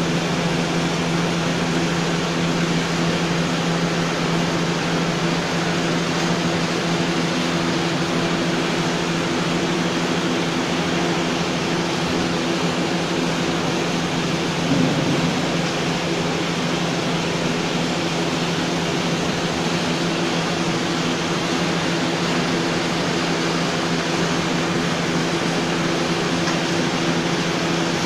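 Steady drone of an instant noodle production line running: an even machine noise with a constant low hum. One brief bump about halfway through.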